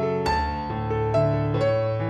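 Background music: a slow piano melody, a new note struck about every half second over held lower notes.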